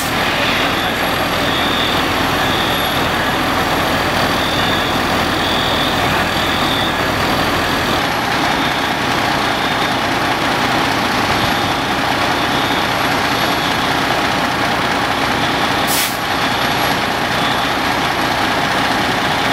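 Fire engine diesel engines idling steadily as a loud, even rumble. Twice, right at the start and again about sixteen seconds in, there is a short, sharp hiss of air like an air brake being set.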